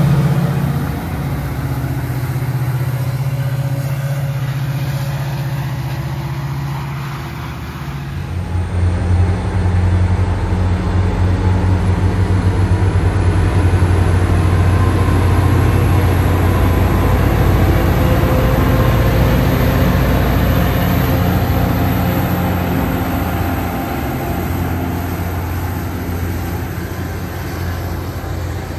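Caltrain diesel-electric locomotives passing with their engines running: a steady low diesel drone. About eight seconds in the sound jumps to a second passing Caltrain diesel pulling bilevel passenger cars, its drone stronger and mixed with the rumble of the cars.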